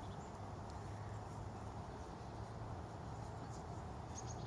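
Quiet outdoor ambience: a steady low hum under a faint background hiss, with a few faint, short high chirps near the start and again near the end.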